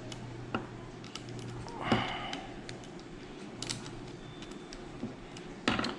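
Small clicks and taps of tools and parts being handled while a paintball marker is taken apart, with one louder handling noise about two seconds in.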